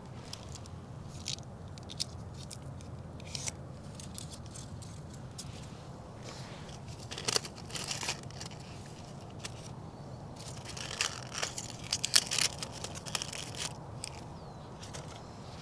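Dry dead succulent leaves crackling and crunching as a gloved hand pulls them out from under the plants and gathers them, in scattered crackles that are thickest about seven seconds in and again from about eleven to thirteen seconds. A steady low hum runs underneath.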